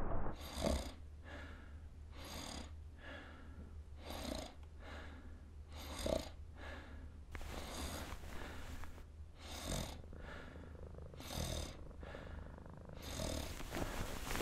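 Snoring in sleep: slow, breathy snores repeating about every one and a half to two seconds, eight in all.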